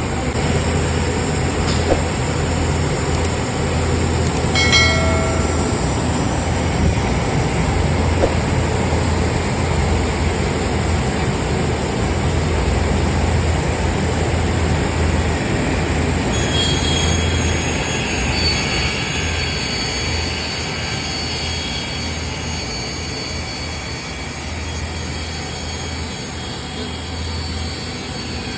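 Woodworking saw machine running and cutting through solid wood: a continuous loud mechanical noise over a steady low drone. About 16 seconds in, high thin whining tones join the noise.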